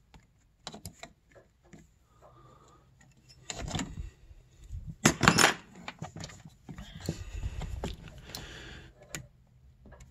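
Small metal wrenches clinking and scraping on a snowmobile's power valve cable adjusting nuts as they are loosened and turned: a few light clicks, a louder metallic clatter about halfway through, then scraping and rustling of hands and cable.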